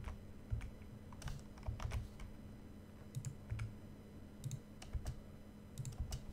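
Computer keyboard being typed on in short, irregular spurts of a few keystrokes with pauses between, over a faint steady hum.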